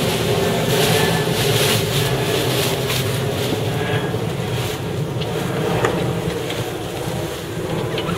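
Wind buffeting the microphone and water rushing along the hull of a sailing yacht under way, with a few sharp clicks in the second half.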